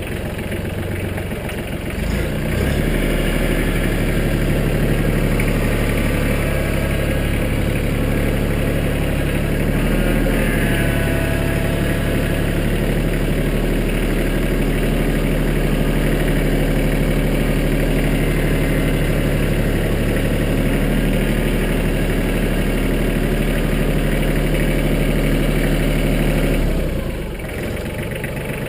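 Mahindra Max 25 compact tractor's three-cylinder diesel engine running steadily as the tractor is driven. It is throttled up about two seconds in and eased back down near the end.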